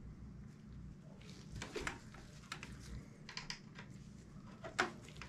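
Small clicks and knocks of an inline skate, its aluminium frame and parts being handled by hand, a scattered handful with the loudest near the end, over a low steady hum.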